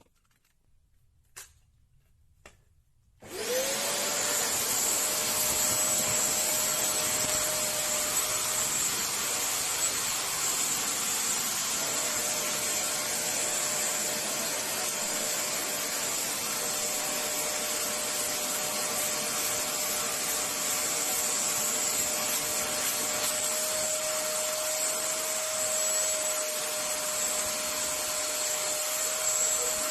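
A few faint clicks, then about three seconds in a vacuum cleaner switches on: its motor winds up within a second to a steady high whine over a loud rush of air and keeps running evenly.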